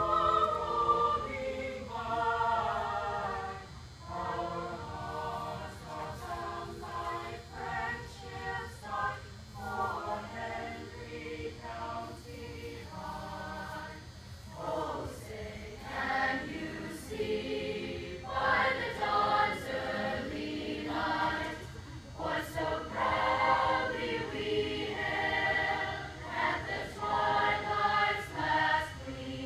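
Mixed choir of young men's and women's voices singing a cappella in harmony.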